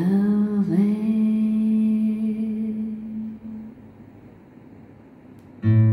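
A woman's voice sings one long, steady note in a slow folk hymn, fading away over a few seconds. Acoustic guitar strumming comes in near the end.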